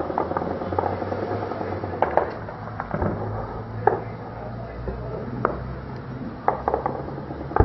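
Distant small-arms gunfire: scattered single shots at irregular intervals, about eight in all, over a steady low rumble.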